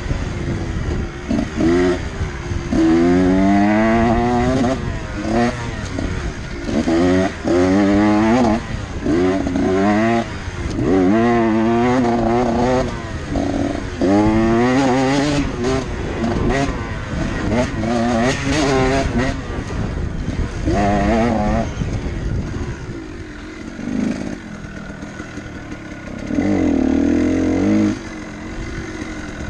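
Dirt bike engine revving up and dropping back over and over while being ridden, its pitch climbing in repeated sweeps. It eases off to a lower drone about three-quarters of the way through, then revs up once more near the end.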